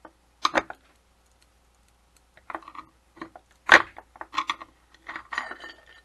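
Sharp metallic clicks and snaps as a flat screwdriver pries the copper stator coils off a Seagate hard drive's built-in spindle motor, breaking them away piece by piece. The clicks come in small clusters, with the loudest snap a little before four seconds in.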